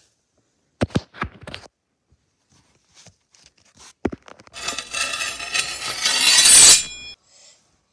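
Handling noise from toys rubbing against the recording device: a few knocks and taps, then about two and a half seconds of loud rubbing and rustling right at the microphone that grows louder and cuts off suddenly.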